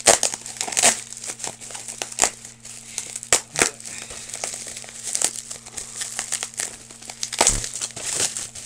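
Bubble wrap being crumpled and pulled apart by hand while a package is unwrapped, with irregular sharp crinkling and crackling throughout.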